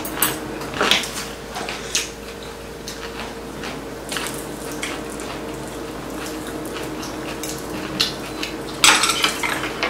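Metal spoons and chopsticks clinking and tapping against ceramic bowls and plates at a meal: scattered clicks, with a short burst of louder clatter near the end. A faint steady hum runs underneath.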